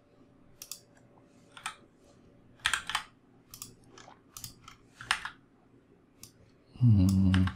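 Computer keyboard and mouse clicks, a dozen or so at irregular intervals. Near the end comes a short low hum from a man's voice, the loudest sound.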